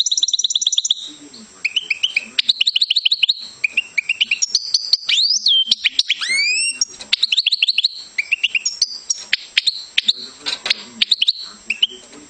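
European goldfinch singing: long runs of fast, high twittering trills, with a few rising whistled glides about halfway through.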